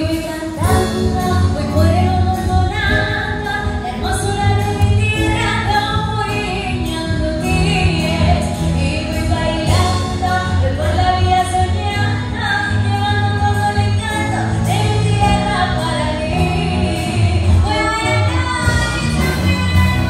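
A woman singing a pop-style song into a microphone, accompanied by a large youth symphony orchestra of strings and winds over a steady beat.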